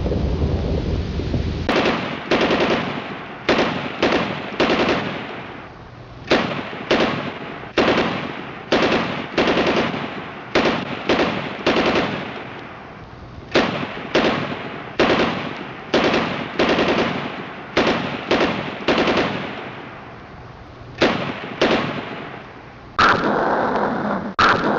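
Machine-gun sound effect: short bursts of automatic fire, each a quick string of shots with an echoing tail, repeated many times in groups with brief pauses. A low rumble comes before the first burst, about two seconds in, and a louder steady roar starts near the end.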